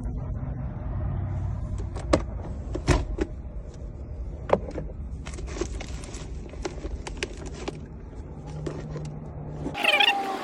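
Scattered metallic clicks and taps from a locksmith's tools working on a locked 2006 Honda Ridgeline over a steady low background rumble, with a few sharper knocks in the first half. Just before the end the rumble cuts off abruptly.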